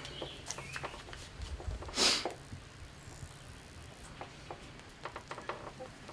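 Faint clicks and taps of a muzzleloader rifle being handled during loading, with one short rustling hiss about two seconds in.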